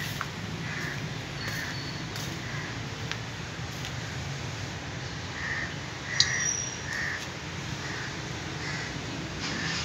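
Birds calling outdoors: short calls repeated in loose groups every second or so, with a sharp click about six seconds in.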